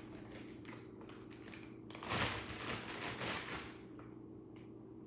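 Hands pinching and rolling a small lump of soft clay, with faint light taps and rustles, then a louder stretch of rubbing about two seconds in, lasting a second and a half. A steady low hum runs underneath.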